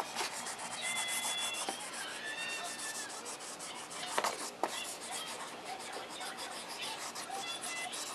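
Wax crayon scribbling on a colouring-book page: quick back-and-forth strokes rubbing across the paper, with a couple of harder strokes about four seconds in.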